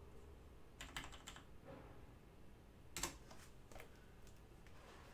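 Faint, sparse clicking of keys on a computer keyboard: a few keystrokes about a second in, then a sharper one about three seconds in, followed by several lighter ones.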